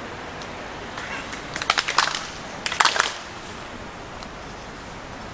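A group of people clapping their hands twice, each clap a slightly ragged cluster of many hands, the two rounds about a second apart. These are the two ritual claps of Shinto shrine worship, between the bows.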